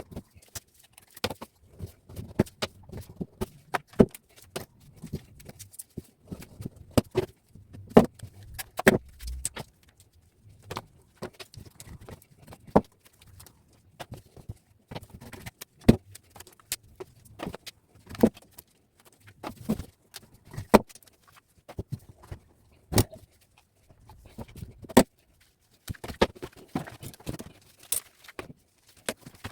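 Irregular sharp clicks and light metallic clinks, a few much louder than the rest, from scrap wire and metal being handled and stripped by hand.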